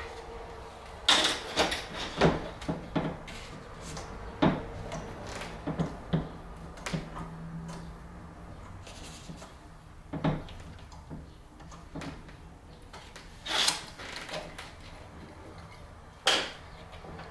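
Wooden picture frame being handled and laid on a plastic folding table: scattered knocks and clicks of wood against the tabletop and of the backing board, at irregular intervals, with the sharpest knocks about a second in and a few more near the end.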